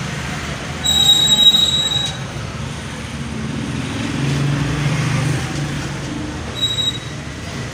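Street traffic from motorcycles passing in a narrow lane: a steady low engine rumble. A high, piercing squeal starts about a second in and lasts about a second, the loudest sound here, and comes back briefly near the end.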